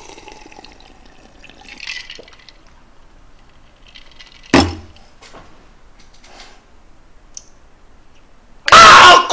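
Sipping from a glass of iced drink, with faint liquid and ice-in-glass sounds, and one sharp knock about halfway through as the glass is set down on the table. Near the end a loud, drawn-out vocal exclamation from the drinker.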